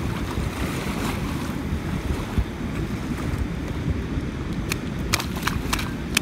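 Wind buffeting the microphone, a steady low rumble, with several sharp clicks in the last two seconds.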